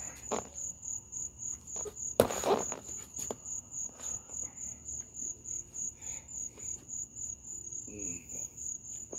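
Crickets chirping steadily in a fast, even pulse. About two seconds in there is a single sharp smack followed by a brief rush of noise.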